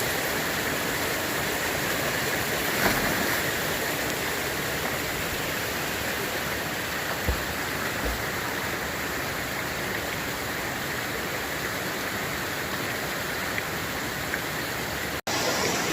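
Creek water rushing steadily, an even hiss of flowing water, with two faint low knocks about seven and eight seconds in.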